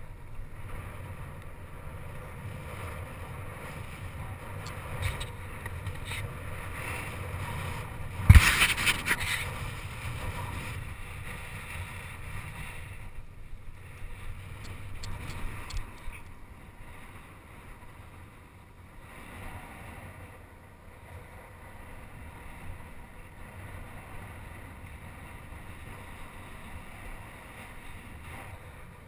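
Wind rushing over the camera microphone and bicycle tyres rolling on loose dirt while riding a jump track, with one hard thump about eight seconds in.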